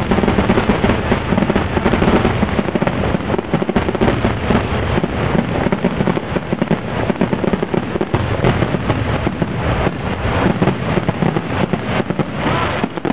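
Fireworks grand finale: a dense, continuous barrage of aerial shell bursts and crackling reports, many bangs overlapping with no pause.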